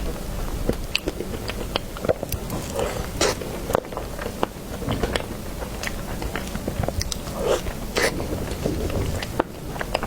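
Close-miked eating sounds of a person chewing and biting into cream cake, with many short, irregular mouth clicks and smacks.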